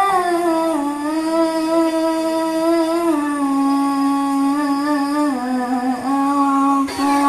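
A single high solo voice holds one long drawn-out sung note in melodic Quran recitation. The pitch wavers a little and steps slightly lower about three seconds in.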